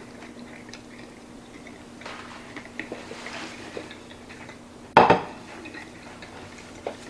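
A plate is set down hard on a kitchen counter with a single clatter about five seconds in, among smaller handling clicks and rustles. A steady low hum runs underneath.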